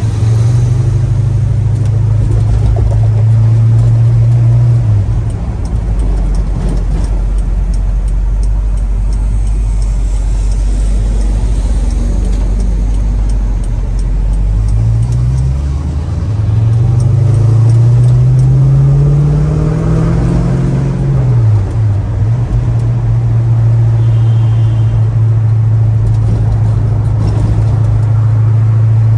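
1965 Pontiac GTO's V8 engine running at a steady pitch, settling lower about five seconds in. Past the middle its speed climbs for several seconds and then drops back sharply, and it runs steady again to the end.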